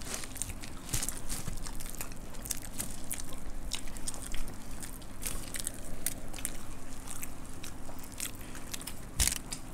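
Close-miked eating of puffed rice (muri) with sev and fried snacks: many small crisp crunches, with chewing and biting, and crackling as fingers mix the dry puffed rice. A faint steady hum runs underneath.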